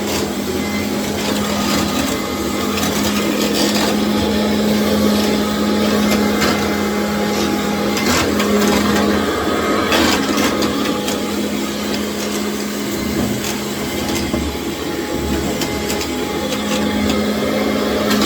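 Commercial vacuum cleaner running steadily over a tile floor, a constant motor hum under a loud rushing hiss, with a couple of brief clicks near the middle.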